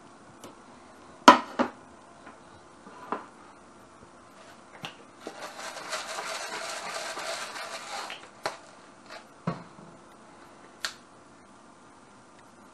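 Hand-twisted pepper mill grinding black pepper for about three seconds in the middle, a steady gritty crunching. Before it come sharp clinks and knocks of a spatula and non-stick frying pan, the loudest about a second in, and after it a few light knocks of containers being set down and picked up.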